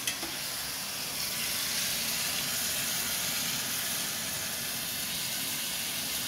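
Tomatoes frying in oil in a pan, a steady sizzling hiss, with one short click just after the start.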